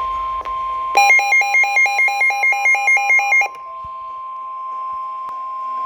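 Weather radio alert alarm beeping rapidly, about four to five pulses a second, for about two and a half seconds, signalling an incoming warning. A steady high tone runs underneath and carries on after the beeping stops.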